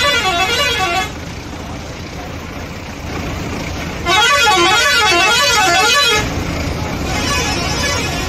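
A bus's musical pressure horn plays a warbling tune of rising and falling notes in three spells: briefly at the start, longest and loudest about halfway, fainter near the end. A steady low rumble runs underneath.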